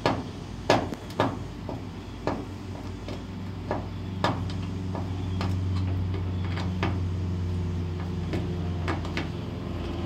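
A screwdriver tightening the screws of a dryer cord's metal strain-relief clamp against the dryer's sheet-metal back panel: a string of irregular sharp metal clicks and taps, the loudest in the first second or so. A steady low hum rises under the clicks from about halfway through.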